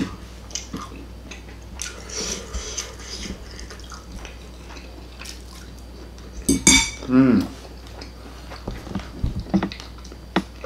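Metal fork clinking and scraping against ceramic plates, in scattered sharp clicks, while a man eats steak. About seven seconds in there is a louder cluster of clinks and a brief falling hum of a voice.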